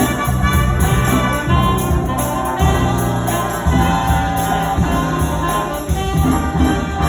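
High school jazz band playing a big-band tune live: brass section with trumpets and trombones over bass and a drum kit with steady cymbal hits.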